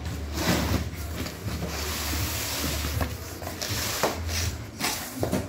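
Cardboard box being cut and opened by hand: rustling and scraping of cardboard as the flaps are pulled back, with a few short knocks.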